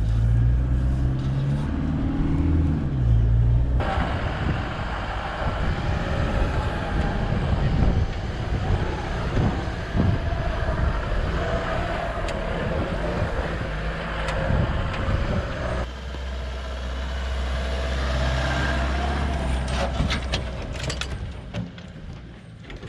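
Four-wheel-drive ute driving on a soft sand track: engine running with tyre and wind noise. The sound changes sharply about four seconds in and again past halfway, as the shots change.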